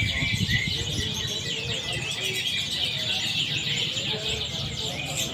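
Domestic canaries singing competitively, several at once, in a dense unbroken chorus of rapid trills and chirps.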